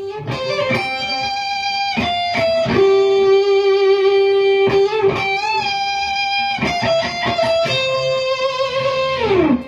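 Electric guitar playing a lead line of picked, long-sustained notes through an amplifier, one note held for about two seconds in the middle. It ends with a slide down in pitch.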